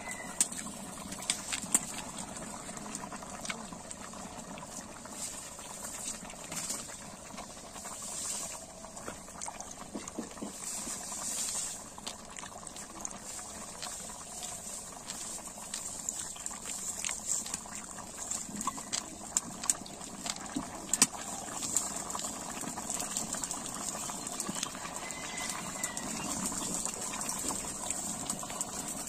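Curry boiling in a black iron pot over a wood fire: a steady bubbling hiss with frequent small pops and crackles.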